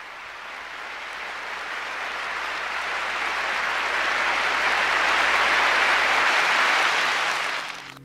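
River water rushing over rocks in shallow rapids, a steady hiss that grows steadily louder and cuts off abruptly near the end.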